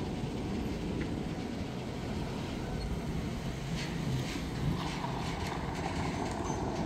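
Freight cars creeping forward from a standstill, a steady low rumble with a run of short clicks and creaks from wheels and couplers about four seconds in, as the slack runs out of the train.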